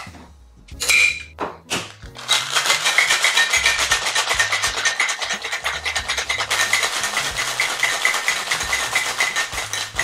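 Ice rattling inside a tin-on-tin cocktail shaker during a hard shake: a fast, steady rattle of ice striking the metal tins, starting about two seconds in after a couple of separate clanks.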